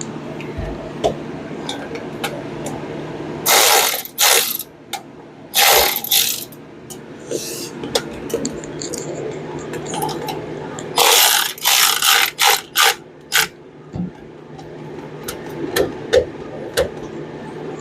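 Ratchet wrench clicking in short bursts as a bolt is run in to fasten a spark plug wire bracket tab on the engine. There are two bursts in the first half and a quicker run of strokes later on.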